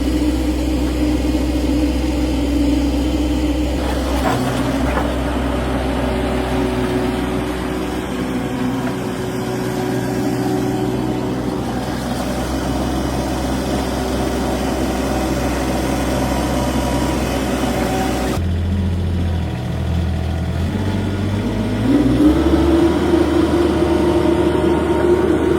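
An engine running steadily, its sound changing abruptly twice and rising in pitch and loudness shortly before the end.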